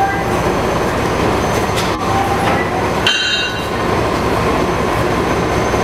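Steam locomotive No. 9351 moving slowly along the track: a steady rumble and hiss, with a short squeal of wheels on the rail about three seconds in.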